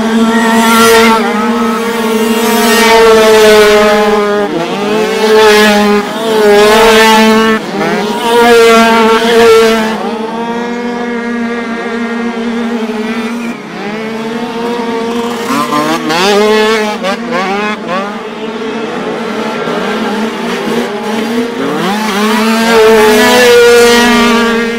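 Several small 49cc two-stroke dirt bike engines revving up and down, rising and falling in pitch as the bikes pass one after another over a steady engine drone. They are loudest in the first ten seconds and again near the end.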